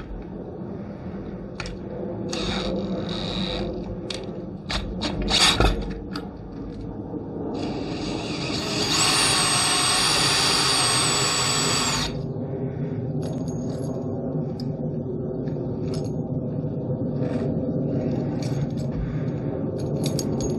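A drill turns the bolt of a homemade rivet-nut setting tool, pulling the rivet nut tight so that it collapses into the steel bracket. The drill runs loudest for a few seconds in the middle with a high whine, and metallic clicks and clinks from the bolt, nut and washers come before and after.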